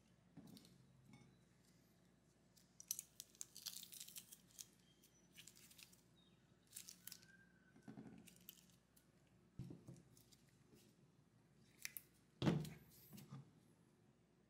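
Metal garlic press squeezing peeled garlic cloves: faint scattered clicks and crunches as the handles close and the pulp is pushed through, with a dull knock near the end.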